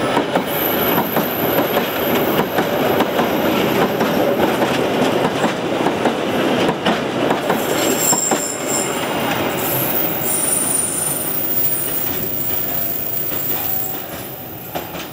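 Ballast hopper wagons rolling past close by, wheels clacking over the rail joints with high-pitched wheel squeal. The noise falls away near the end as the last wagon passes.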